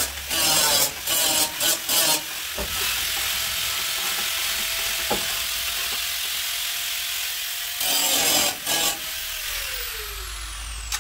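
A power tool working in rough strokes, then running steadily with a high hiss and a thin whine, with a few more strokes after about eight seconds. Near the end its whine falls in pitch as it spins down.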